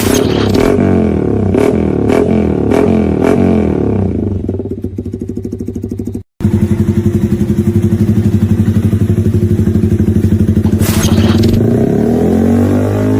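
Yamaha R15's single-cylinder engine through an aftermarket exhaust, revved in quick repeated blips with a sharp crack about every second, then settling. After a brief cut about six seconds in, the bike idles with a loud, steady pulsing exhaust note.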